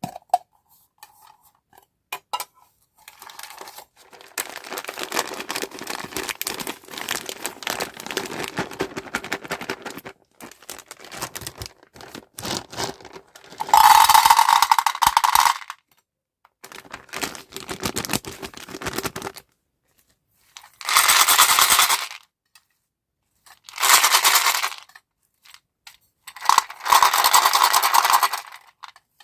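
Small hard-shelled candies (M&M's and Skittles) pouring and rattling against each other and their container, in a long stretch of dense clicking followed by several louder pours of about two seconds each.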